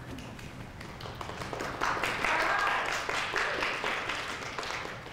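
Applause from a small audience, swelling about two seconds in and tapering off near the end.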